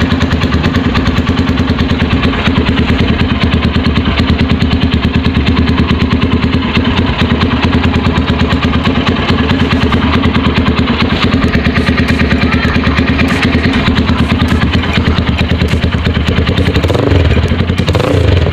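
Single-cylinder engine of a Motorstar Xplorer Z200X motorcycle idling steadily through an aftermarket Akrapovic slip-on exhaust, a loud, even run of rapid exhaust pulses.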